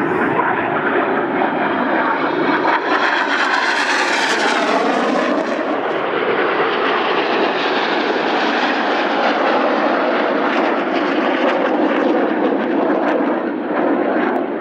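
BAE Hawk T1 jets flying a display pass, their turbofan engines running loud and steady. About three to five seconds in, a jet passes close with a sweeping whoosh, and after that the noise of the formation carries on.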